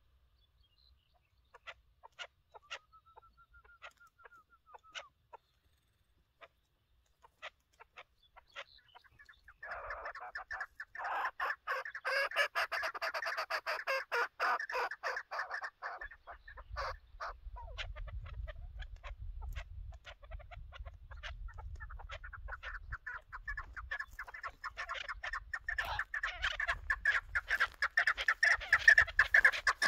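Chukar partridge calling: a few scattered single clucks at first, then from about ten seconds in a fast, unbroken run of chattering chuck calls that grows louder near the end. A low rumble sits underneath from about halfway.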